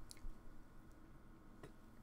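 A few faint clicks and squishes of a plastic soda bottle being gripped and lifted to drink, over quiet room tone: one click near the start and another about three-quarters through.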